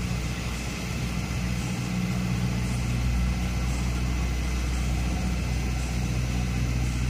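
Engine running steadily with a low, even hum, getting a little louder after about two seconds.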